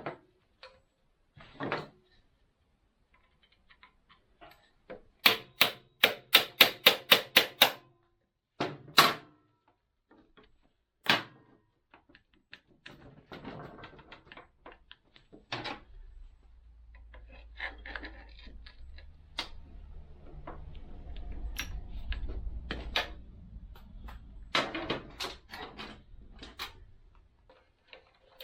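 Metal hand tools clicking and knocking on a motorcycle being stripped down. There is a quick run of about ten sharp clicks, a few single knocks, and a low rumble in the middle part.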